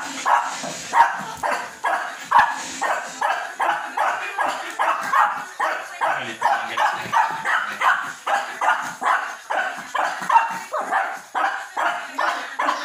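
Small dog yapping without a break, about three short, high barks a second, excited by a live crab it wants to play with.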